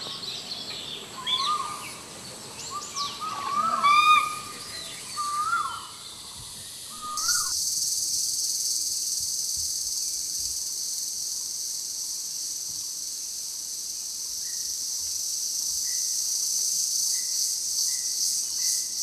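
Forest ambience of short rising hooting calls and bird chirps for about seven seconds, then a sudden switch to a steady, high-pitched insect chorus.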